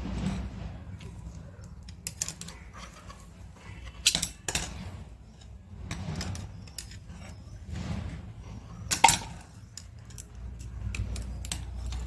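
Irregular metallic clinks and knocks from tools and metal parts being handled, the loudest knock about nine seconds in, over a low steady hum.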